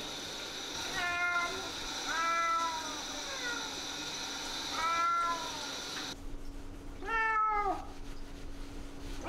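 Maine Coon cat meowing four times, each meow a drawn-out call of about half a second that rises and then falls in pitch: the complaining meows of a wet cat being groomed after a bath.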